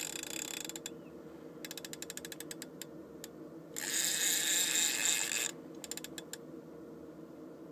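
Fishing reel's ratchet clicking rapidly in bursts as a hooked coalfish pulls line off the spool, the clicks running together into a continuous buzz for about a second and a half near the middle as the fish runs hard.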